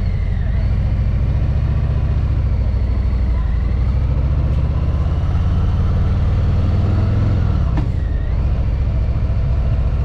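Cruiser motorcycle engine pulling away and accelerating, its note climbing over the first seven seconds. Just before eight seconds in the note drops suddenly with a click, then runs on.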